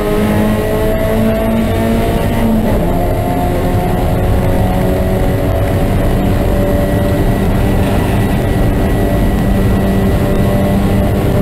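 Race car engine heard from on board at speed, loud and steady, its note rising slowly as the car accelerates, with a change in pitch about two and a half seconds in.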